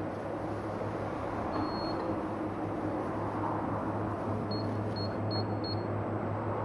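Electronic beeps: one longer beep about a second and a half in, then four short beeps in quick succession near the end, over a steady low machine hum.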